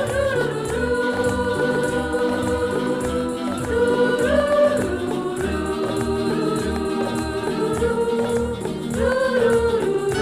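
Background music: a wordless sung melody of long held, sliding notes over a steady pulsing bass.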